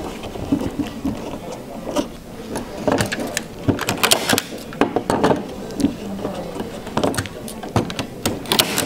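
Hand-squeezed staple gun firing staples through linen canvas into a wooden stretcher bar: several sharp clacks from about two seconds in. Between them comes the rustle of the canvas being pulled taut by hand.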